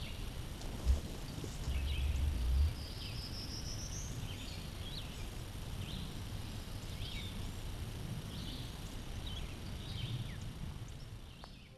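Wild turkey gobbler in strut giving its spit and drum: a short low puff about a second in, then a deep low drumming hum for about a second. Songbirds chirp over it, with one rising trill.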